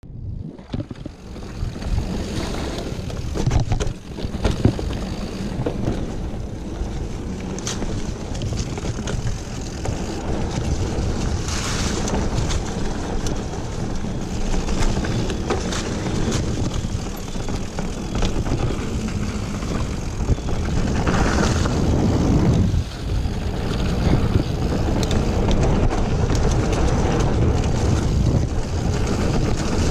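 Mountain bike riding fast over leaf-covered dirt singletrack: steady wind rush on the microphone and tyre noise, with frequent short clicks and rattles from the bike over bumps.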